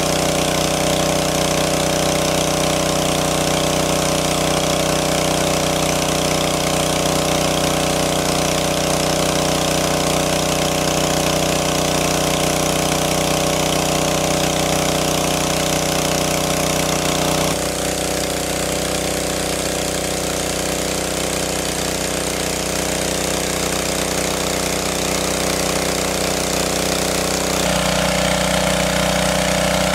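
Small engine-driven water pump running steadily, its tone changing abruptly twice, about two-thirds of the way in and again near the end.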